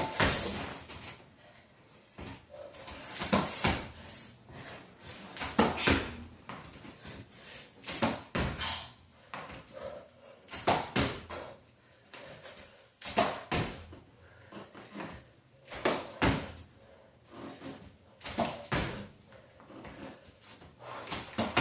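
Sneakered feet landing on the floor during jump squats: a cluster of thuds and scuffs about every two and a half seconds.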